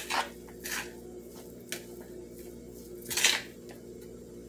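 A metal spoon stirring chicken salad in a large bowl: soft squishing of the mixture with a few separate scrapes and clinks of the spoon against the bowl, the loudest a little after three seconds in, over a steady low background hum.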